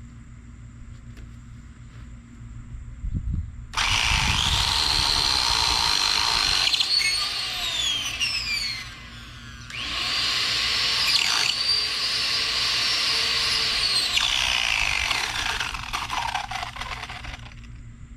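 Small Works chainsaw running in two bursts of several seconds each, with a high motor whine that falls in pitch as each burst winds down.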